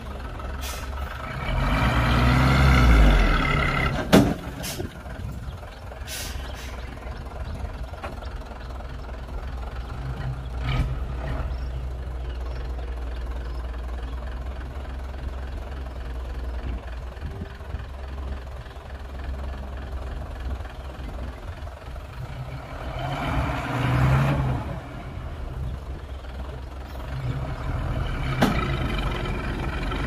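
Heavy diesel engines of a bulldozer and dump truck running with a steady low drone. An engine revs up and falls back a few seconds in and again about two-thirds of the way through. A single sharp, short sound comes right after the first rev.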